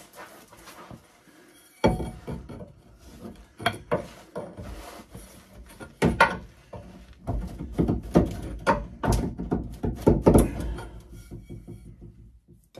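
Irregular knocks, clunks and clicks of car parts being handled and fitted by hand. Heavier, closer-spaced thumps come about seven to eleven seconds in, and the noise stops just before the end.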